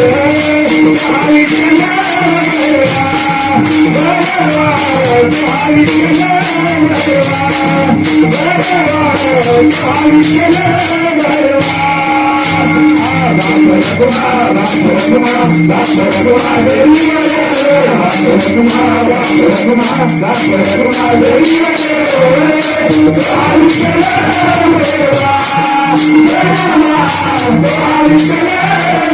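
Marathi devotional bhajan (gaulan) in performance: a melody gliding up and down, sung by the lead singer, over a steady held note, with metal jingles keeping a dense steady beat.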